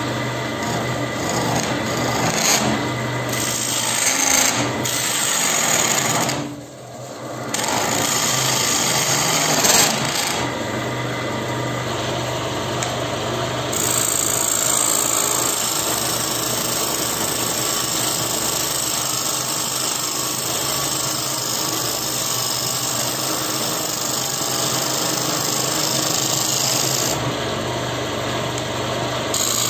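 Wood lathe spinning a burl bowl blank while a hand-held turning chisel cuts into it: a steady cutting noise over the lathe motor's hum. The cutting drops away briefly about six seconds in.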